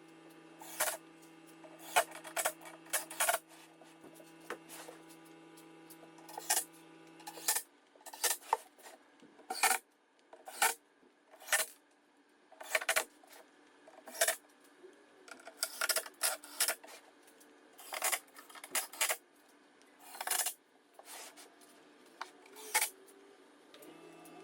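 A series of sharp metallic clicks and clinks, separate or in small clusters, from screws and tools being handled. A low steady hum runs underneath for the first third or so and comes back near the end.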